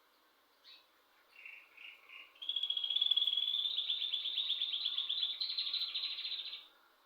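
A pet bird singing indoors: a few short chirps, then a fast, high trill lasting about four seconds that stops suddenly.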